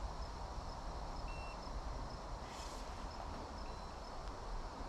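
Quiet outdoor ambience: a steady low rumble with one short high chirp about a second in and a brief rustle a little past halfway.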